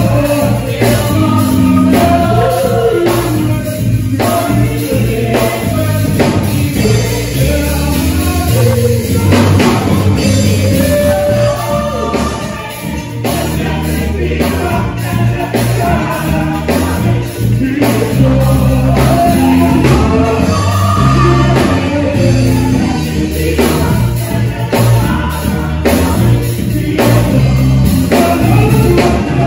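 A small vocal group singing a worship song into microphones, several voices together, over a steady instrumental backing with a prominent bass line.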